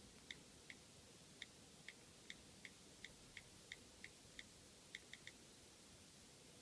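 iPhone on-screen keyboard key-click sounds as keys are tapped: about fourteen faint, short ticks at an uneven typing pace, ending in three quick taps.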